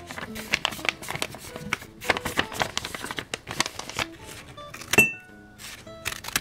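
Paper rustling and tearing as notebook pages are pulled from a spiral binding and cut with scissors, in many short crisp strokes, with a sharp click about five seconds in. A light background music tune plays underneath.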